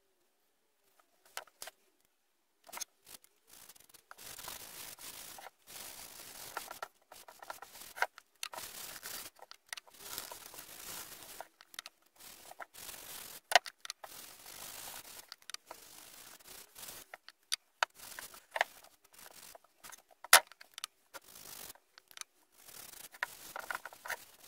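A cloth rag rubbing wood stain along a wooden board in repeated wiping strokes, starting about four seconds in, with occasional sharp clicks and two louder knocks.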